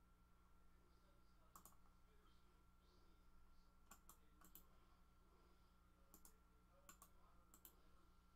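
Near silence: room tone with a faint steady high tone and about seven faint, sharp clicks spaced irregularly, some in quick pairs.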